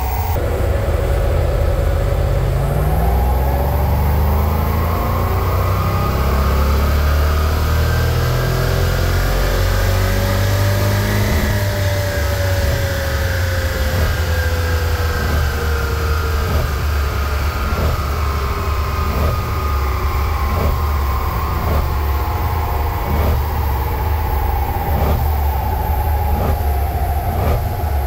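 Supercharged 4.2-litre AJ V8 of a Jaguar XKR under full load on a rolling-road dyno during a power run. The revs climb steadily for about eleven seconds, then fall away as the engine comes off load and runs down.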